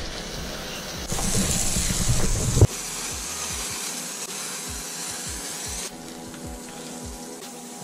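A handheld foam sprayer hisses as it sprays foam onto a motorcycle, starting about a second in and cutting off abruptly after about a second and a half. Background music with a steady beat runs through.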